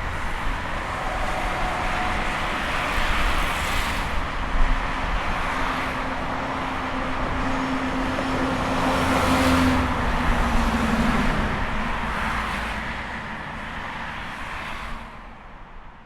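Highway traffic: a continuous rush of tyre and engine noise, with vehicles passing loudest about four seconds and nine to ten seconds in. One passing vehicle carries a steady engine hum that drops slightly in pitch as it goes by. The sound fades out near the end.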